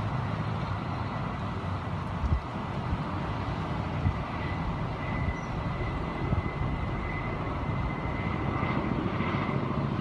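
Firefighting helicopter flying toward the listener, a distant engine drone with a thin high whine that grows stronger in the second half. Wind buffets the microphone throughout with an uneven low rumble.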